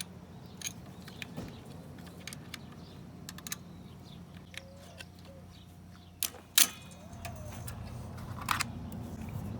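Small metal clinks and ticks of open-end wrenches working loose the nut on the lawnmower's engine linkage, with a sharper clack about six and a half seconds in. A steady low hum runs underneath.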